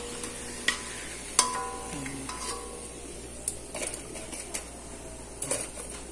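Krupuk crackers frying in hot oil in a steel wok, a faint steady sizzle, with a metal spatula knocking against the wok and wire strainer about six times; the sharpest knock, about a second and a half in, rings briefly.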